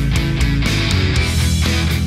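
Rock music with guitar over a steady drum beat.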